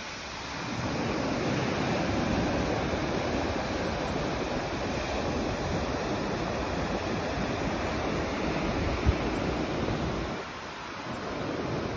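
Ocean surf washing onto a sandy beach, a steady rushing hiss that eases briefly near the end.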